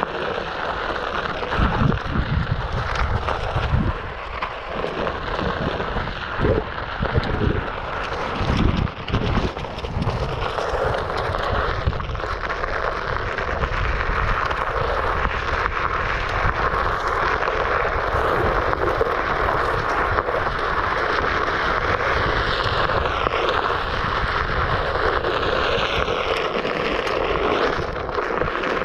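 Wind rushing over the microphone and tyre rumble while a Onewheel Pint electric board rides a dirt trail. Low buffeting thumps come in the first third, and in the last few seconds a faint whine dips and rises in pitch.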